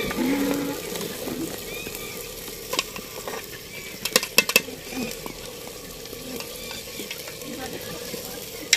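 Steady sizzling from an aluminium pot over a wood fire, with a ladle stirring in it. Metal clinks of ladle and lid against the pot: one about three seconds in, a quick run of three or four about a second later, and one more near the end.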